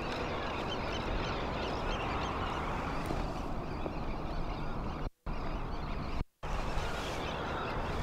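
A flock of waterbirds calling, many overlapping chirps and honks, over a steady low rumble. The sound cuts out briefly twice, about five and six seconds in.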